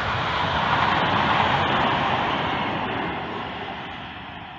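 Polregio passenger train rushing past over the level crossing, its noise peaking about a second in and then fading as it moves away.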